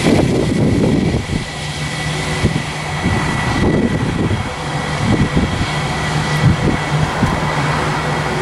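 Airbus A319 airliner's twin jet engines running at taxi power, a steady high whine over a low hum, as the jet taxis past. Gusty wind buffets the microphone throughout.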